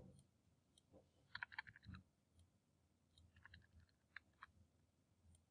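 Near silence with faint computer mouse clicks: a quick cluster of clicks about a second and a half in, then a few single clicks later on.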